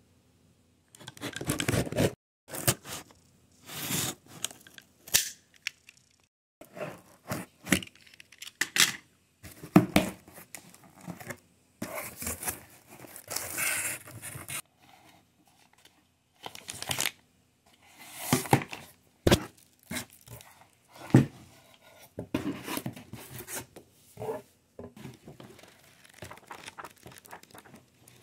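Packaging being torn open and handled: a cardboard shipping box and clear plastic bags ripped and crinkled in irregular bursts, starting about a second in.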